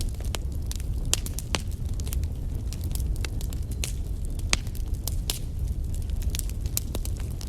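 Wood fire burning in a fireplace: logs crackling with irregular sharp pops and snaps over a low steady rumble of the flames.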